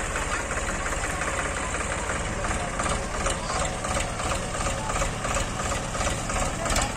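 Tractor's diesel engine running steadily close by, with a rapid, even low chugging.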